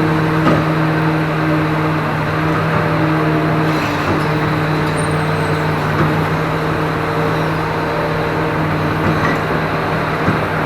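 Hydraulic excavator's diesel engine running steadily under work, with a few faint knocks.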